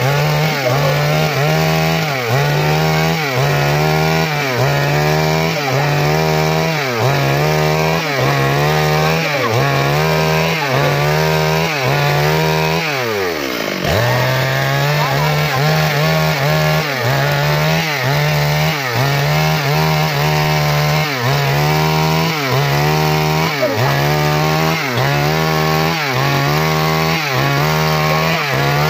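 STIHL chainsaw running at high revs while rip-cutting a log lengthwise into planks. Its engine pitch dips and recovers about once a second as it works through the wood. About thirteen seconds in it falls away sharply, then revs straight back up.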